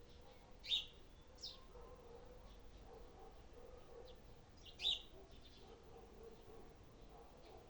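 A bird calling: two loud, sharp calls, about a second in and again near five seconds, each a quick falling sweep that ends in a short held high note, with a softer call and faint chirps between.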